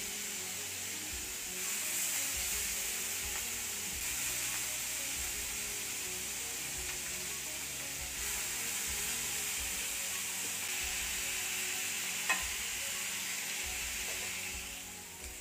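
Marinated chicken drumsticks sizzling on a hot grill pan as pieces are laid down one after another, the sizzle swelling each time a new piece goes on. A single sharp tap comes a little past the middle, and the sizzle dies down near the end.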